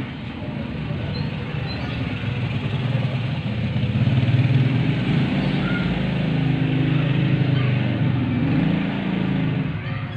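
A motor vehicle's engine running steadily as a low rumble, growing louder from about four seconds in.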